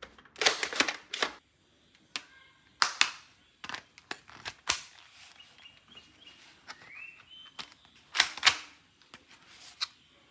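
Irregular sharp plastic clicks and snaps from toy weapon parts being handled, the loudest in pairs about half a second and eight seconds in, with a short rising squeak about seven seconds in.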